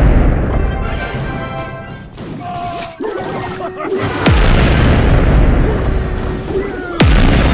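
Deep boom sound effects with long rumbling tails. One is still dying away at the start, a fresh one hits about four seconds in and another near the end, with music-like held tones in between.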